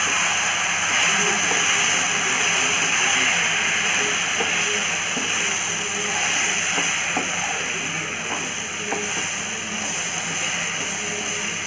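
Mixed vegetables and ground masala frying in oil in a nonstick pan: a steady sizzle, with a few light taps and scrapes as a wooden spatula stirs them through the spices.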